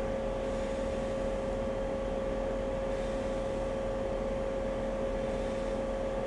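Steady hum with a constant mid-pitched whine over a flat hiss, unchanging throughout.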